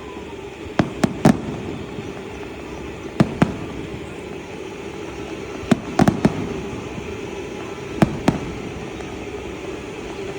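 Fireworks bursting overhead: about eleven sharp bangs in clusters of two to four, a couple of seconds apart, over a steady background rumble.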